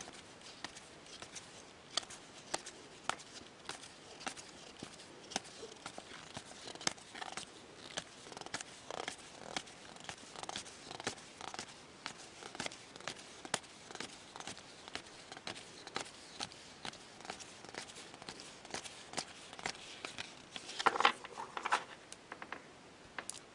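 Hockey trading cards being flipped through one by one in the hands, each card giving a light click or snap, a few a second. About three quarters of the way through there is a louder rustling clatter as the cards are handled.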